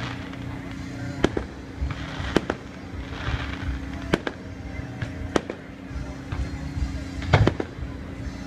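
Fireworks going off: a string of sharp, irregular bangs roughly every second or two, with the loudest cluster about seven seconds in, over a steady low hum.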